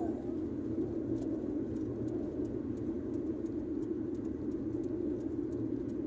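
Steady road and engine noise heard inside a Hyundai Getz's cabin while it cruises at highway speed: an even rumble and tyre hum.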